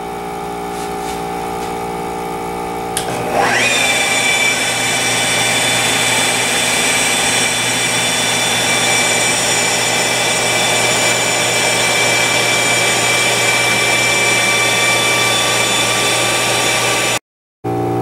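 A steady motor hum, then about three seconds in a Flex wet polisher mounted in a polishing gantry switches on, its pitch rising briefly as it spins up. It then runs steadily with a high whine, polishing a quartz countertop with a diamond mesh pad. The sound cuts off near the end.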